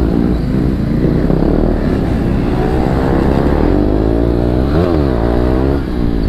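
Single-cylinder KTM motorcycle engine accelerating under the rider, its revs climbing to a peak just under five seconds in and then dropping, over a low rumble of wind and road noise.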